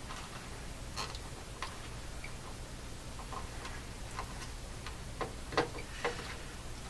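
Scattered light clicks and taps, irregularly spaced and coming more often in the second half, from hand tools and a stiff old power cord being worked out of a vintage radio receiver's chassis. A low steady hum runs underneath.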